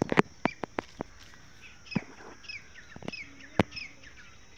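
A dog's metal chain clinking in short, sharp clicks as the dog shifts on the grass, thickest in the first second and scattered after. From about two seconds in, a bird chirps in short falling notes, a few a second.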